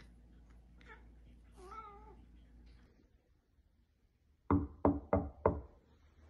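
A cat's short meow, then four loud knuckle knocks on the front of a dresser drawer, about three a second.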